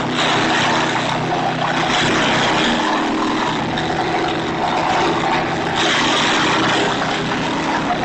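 Jansen engine-driven garden wood chipper running steadily while conifer branches are fed in and shredded, a constant engine hum under a rasping chipping noise that swells and eases as the branches go through.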